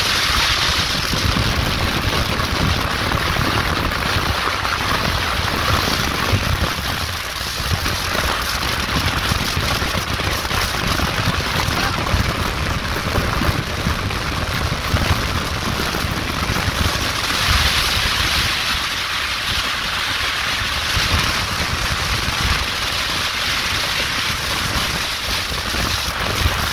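Wind rushing steadily over the microphone, with the road and engine rumble of a moving car, heard from riding in the back of the vehicle.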